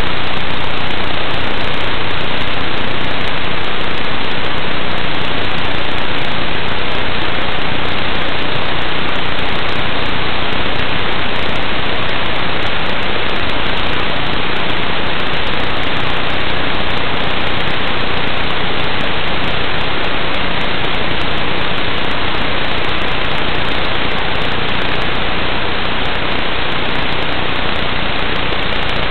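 Loud, steady static hiss on the audio channel of an analog FPV video link, with no motor sound coming through. The pilot notes that this noise grows as the flight goes on and wonders whether the Fat Shark goggles' battery is running low.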